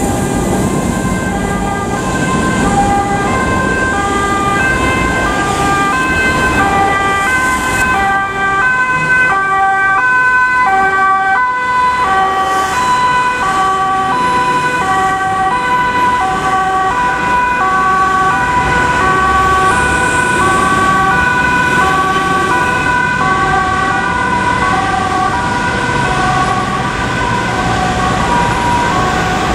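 Fire engines' two-tone sirens (German Martinshorn) sounding continuously, the tones stepping back and forth between a high and a low pitch, over the noise of passing road traffic.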